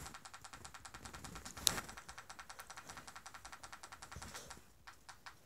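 Rapid, even clicking, about ten clicks a second, with one sharper click about a second and a half in. The clicking stops a little after four seconds in, leaving a few scattered clicks.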